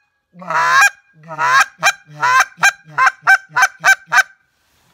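Goose call blown by hand to imitate Canada goose honking: a run of about ten two-note honks, each breaking from a low note up to a high one, getting shorter and quicker towards the end.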